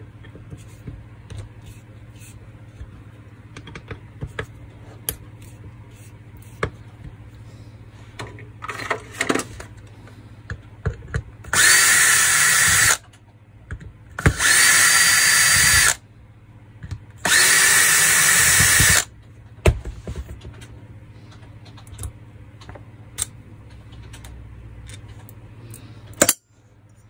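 Cordless drill-driver running in three short runs of about a second and a half each, a few seconds apart, driving screws out of a gearbox housing. Before the runs there are light clicks and taps of hand tools on the bench.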